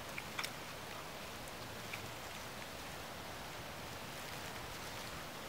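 Dry leaf litter crackling a few times in the first two seconds as a hunter shifts and kneels over a downed deer, over a steady faint hiss of outdoor air.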